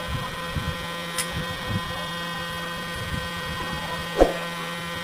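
Steady electrical hum, with light knocks and clicks from a plastic selfie-stick tripod being handled, and one sharper knock about four seconds in.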